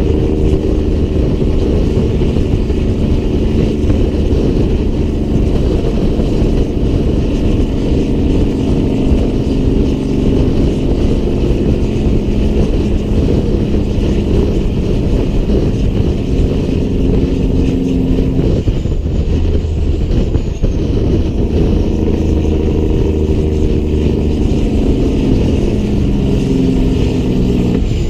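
Diesel engine of a Peterbilt 388 semi truck running steadily under load while hauling. Its note breaks about two-thirds of the way through and settles again a few seconds later.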